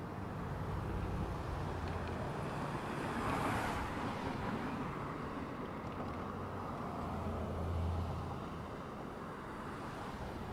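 Outdoor wind-and-traffic noise: a steady rushing haze under a low engine hum, with a rushing swell like a passing vehicle about three and a half seconds in and the hum growing louder around eight seconds in.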